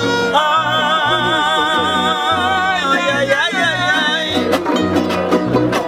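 Son huasteco trio of violin, jarana huasteca and huapanguera playing a huapango with a steady strummed rhythm. Over it a voice holds one long note with a wide vibrato from just after the start until about four seconds in.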